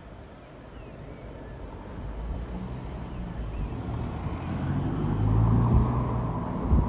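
GBRf Class 66 diesel locomotive's two-stroke V12 engine running and growing louder as it powers up to move a few wagons, with a short knock near the end.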